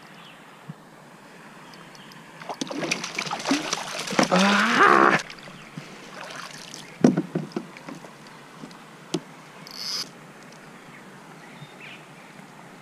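A hooked Australian bass splashing at the surface as it is netted beside a kayak, from about two and a half to five seconds in. A few sharp knocks follow.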